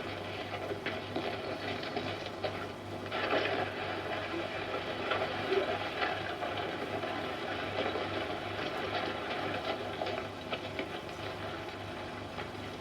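Eumig S905 Super 8 sound projector running, its film-transport mechanism clattering rapidly over a steady low hum and hiss.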